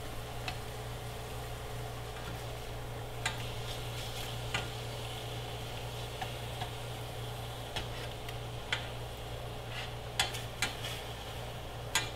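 Chicken breasts frying in oil in a stainless steel pan, a steady sizzle, with scattered clicks of metal tongs against the pan as the pieces are turned over, more of them near the end.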